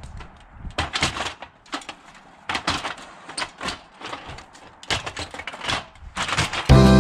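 Irregular knocks and scuffs, a dozen or so, spaced unevenly. Strummed guitar music comes in loudly near the end.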